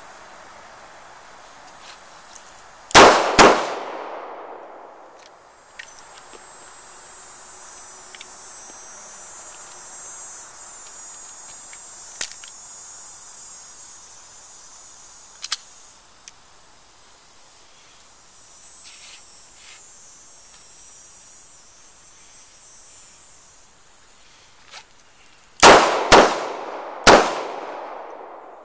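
Snub-nose .357 revolver fired with .38 Special rounds: two quick shots about three seconds in, then near the end two quick shots and a third about a second later, the two-to-the-body, one-to-the-head pattern of the failure drill. Light metallic clicks in between as the revolver is handled and reloaded.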